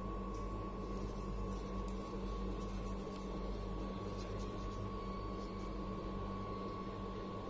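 A steady low hum with a thin, constant high whine, a machine-like room drone, with a few faint clicks as two plastic wall chargers are handled.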